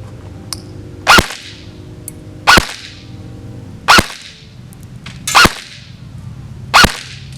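S&T Sportsline M4 airsoft electric rifle with a G3 micro-switch gearbox firing five single shots, about one and a half seconds apart, during a chronograph test. Each shot is a short, sharp, really nice snap.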